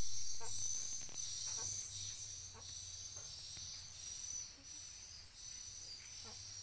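Steady high-pitched buzzing chorus of insects, crickets or cicadas, with faint short chirps now and then.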